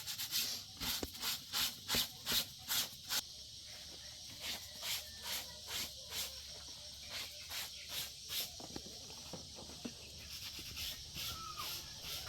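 Rhythmic crunching, rustling strokes, about two and a half a second: loudest through the first three seconds, then fainter and more spread out.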